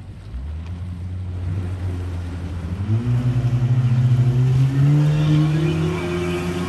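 Jet ski engine accelerating, its pitch climbing in steps and getting louder about three seconds in, then held high as it speeds away.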